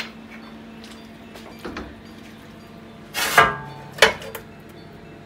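Metal ladle knocking and clanking against a casserole pot and a metal roasting tray as stew is ladled across: a small knock at the start, a louder ringing clank about three seconds in, and a sharp knock just after.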